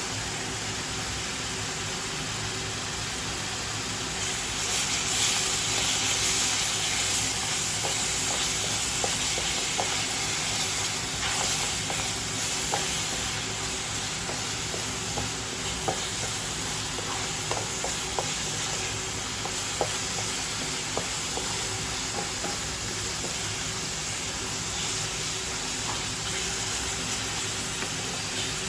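Curry spice paste frying in hot oil in a wok and being stirred: a steady sizzle with light, scattered clicks of the stirring utensil on the pan. The sizzle swells about five seconds in and eases back several seconds later.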